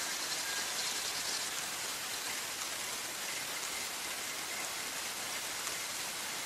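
A steady, even hiss with no separate sounds standing out of it.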